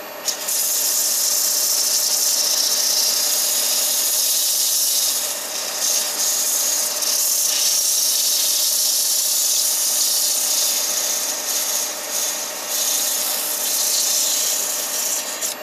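100-grit sandpaper pressed against a small wooden yoyo half spinning on a Record Power Coronet Herald wood lathe: a steady rushing hiss over the lathe's motor hum. The hiss starts about half a second in, dips briefly a few times, and stops just before the end.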